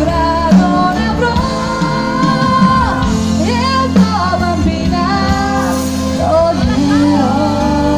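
Live band playing amplified through a PA, with a woman singing a wavering, gliding melody over steady bass and keyboard chords, loud in the crowd's phone recording.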